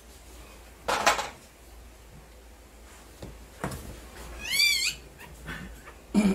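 Newborn husky puppy giving one high, wavering squeal a little past the middle while being rubbed with a towel. Two short noisy bursts come about a second in and near the end.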